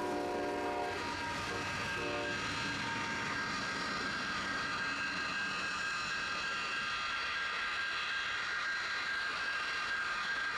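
Freight locomotive horn sounding over the rumble of the passing train, cutting off about a second in, with one more short blast near two seconds. Then the high, steady whine of a jet-engine rail snowblower's turbine takes over and grows louder as the machine approaches.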